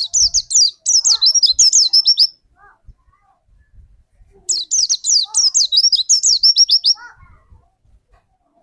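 White-eye (pleci) singing two fast bursts of high, down-slurred chirping notes, each about two seconds long, with a pause between them: the rapid-fire 'tembakan' song that pleci keepers prize.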